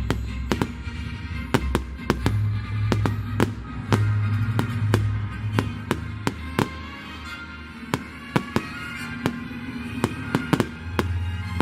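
Fireworks going off in a quick, irregular string of sharp bangs, at times several a second, over music playing along with the show.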